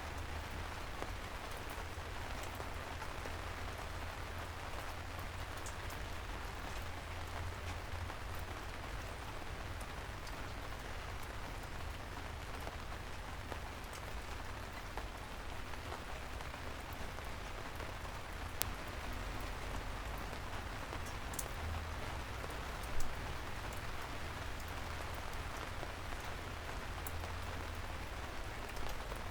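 Steady soft rain falling on city streets, an even hiss with scattered individual drop ticks and a low rumble beneath. One sharper tap stands out about two-thirds of the way through.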